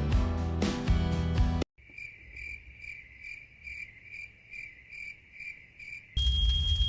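Background music cuts off abruptly, then a cricket chirping sound effect, about two evenly spaced chirps a second, fills the silence. Near the end a loud noise with a low rumble and a steady high tone starts suddenly.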